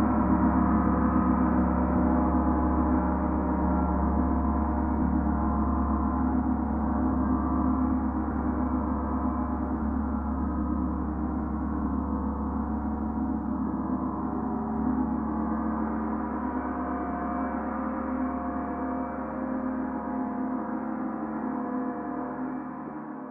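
Large Paiste Mercury planetary gong played with a felt mallet: a continuous shimmering wash of many overlapping tones over a deep hum, slowly easing in loudness and fading just at the end.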